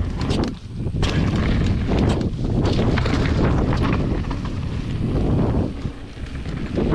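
Wind buffeting the microphone: a loud, uneven rumble that surges and eases several times.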